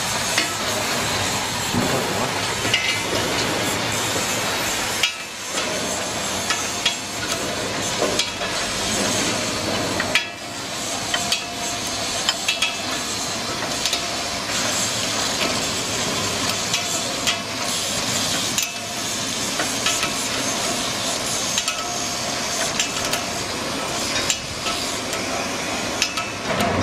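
A wrench clicking and clinking on the steel bolts of a wire-rope clamp on a winch drum, in scattered small metal taps over a steady hiss.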